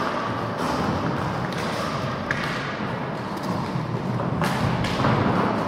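Roller hockey play: a steady rolling noise of skate wheels on the rink floor, with several sharp knocks from sticks and ball.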